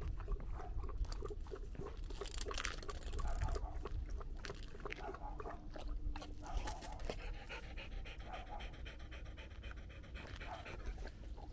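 A Jindo-mix country dog panting in quick repeated breaths, winded after running on the leash.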